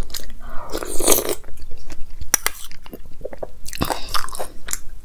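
Close-miked eating of fruit custard with banana, grapes and pistachios: wet mouth clicks and soft chewing, with two longer noisy sounds as spoonfuls are taken into the mouth, about a second in and again near four seconds.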